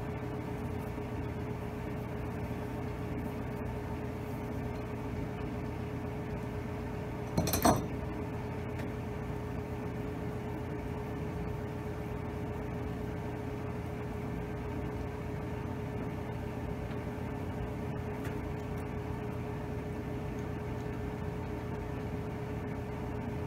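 A steady hum under hand-tool work on the connecting rod of an Allis-Chalmers WD45 engine, as its number one rod bearing cap is taken off. About seven seconds in, steel parts strike with one sharp metallic clank that rings briefly.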